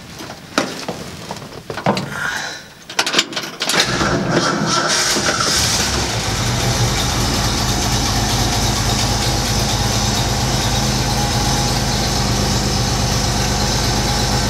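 A 1966 Ford F100's 300 cubic inch (4.9 L) straight-six engine starts after a few knocks about four seconds in and settles into a steady idle.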